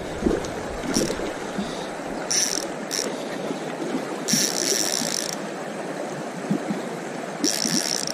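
Spinning reel's drag buzzing in several short bursts as a hooked trout pulls line, the longest about a second long, over the steady rush of a shallow creek and the fish splashing at the surface.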